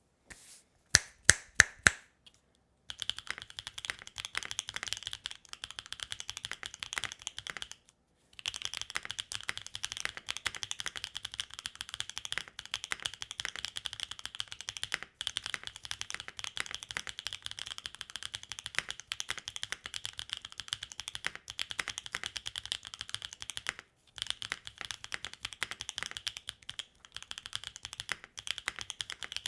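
Mechanical keyboard with factory-lubed BSUN Golden Apple tactile switches (polycarbonate top and PEI bottom housings) on a carbon plate. About a second in come a few loud single keystrokes, then fast continuous typing that pauses briefly twice.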